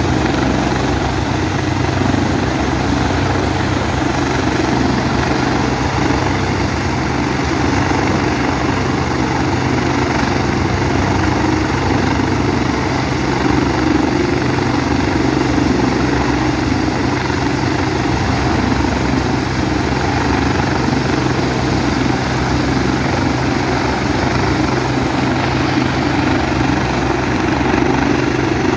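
Helicopter on a helipad with its turbines running and rotors turning at ground idle: a steady, unchanging engine and rotor drone.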